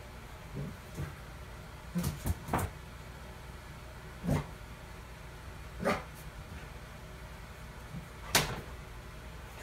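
A dog giving short, sharp play barks at intervals: a quick run of three about two seconds in, then single barks, the loudest near the end.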